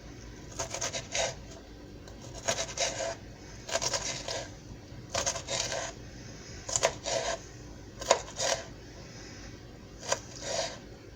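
Kitchen knife chopping bell pepper strips into small pieces on a cutting board, in short runs of quick strokes with pauses between.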